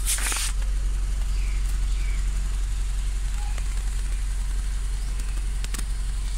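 Honda Stream RN6's four-cylinder engine idling steadily through a Mugen sport exhaust, heard right at the tailpipe. A brief loud hiss comes in the first half-second and a single click near the end.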